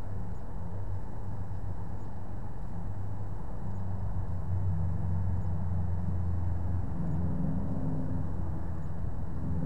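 A stationary car's engine idling: a steady low hum with no changes in speed.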